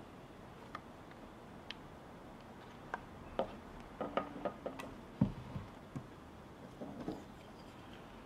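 Light clicks and knocks of wood-carving tools and a wooden workpiece being handled: a few scattered taps, a quick cluster in the middle and one dull thump about five seconds in.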